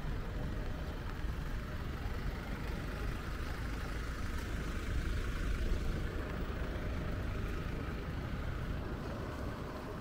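Rainy city street ambience: a steady low rumble of vehicle traffic under an even hiss of rain.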